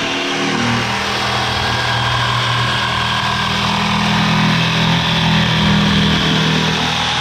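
A power tool's motor running steadily with a low hum, loud and unbroken.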